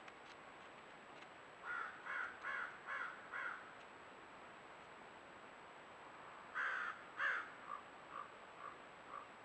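A bird cawing in runs: five harsh calls about half a second apart, then after a pause two louder calls followed by a string of fainter, shorter ones.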